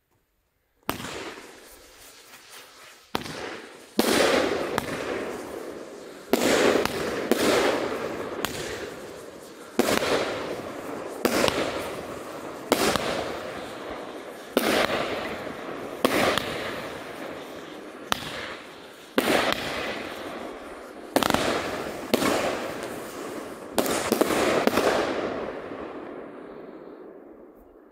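Pyro Moravia 'Tasmanian Devil' consumer firework cake firing shot after shot, about fifteen in all, roughly one every one to two seconds, each launch followed by a spreading crackle of stars. After the last shot the crackling fades away.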